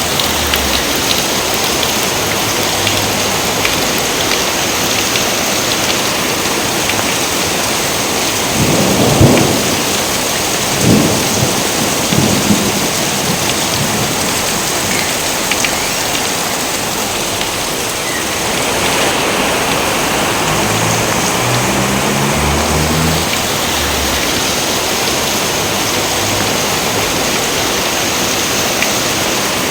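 Steady heavy rain, with three sharp claps of thunder about nine, eleven and twelve and a half seconds in; the first is the loudest.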